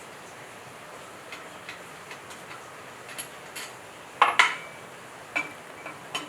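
Light metallic taps and clinks of hand tools against generator engine parts during disassembly, with two louder ringing clanks a little after four seconds in.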